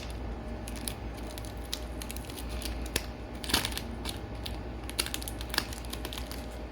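Taped cardboard packaging being cut and pulled open by hand: scattered clicks and crackles, with a longer tearing rasp about three and a half seconds in.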